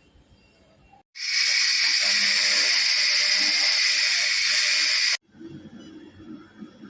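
A handheld fibre laser cleaning gun firing on metal, a loud steady hiss lasting about four seconds that switches on and off abruptly.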